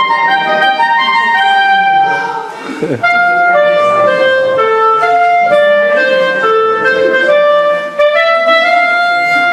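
Solo clarinet playing a melody of held notes, pausing briefly for breath about three seconds in.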